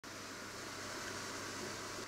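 Steady hiss of room noise, with no distinct event.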